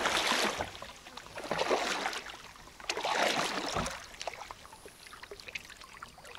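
Water sloshing and splashing in three bursts, about a second and a half apart, with fainter small splashes after them.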